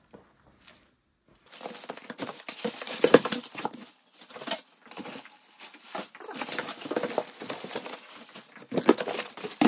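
Plastic wrapping and a cardboard box rustling and crinkling as packed chair parts are handled and lifted out. The crinkling starts about a second and a half in and goes on irregularly.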